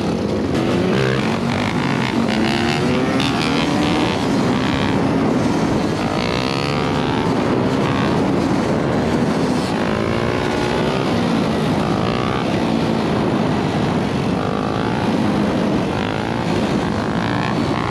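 Several dirt bike engines revving, their pitch rising and falling over and over, heard from a moving bike, a two-stroke Suzuki RM85, with other bikes close alongside.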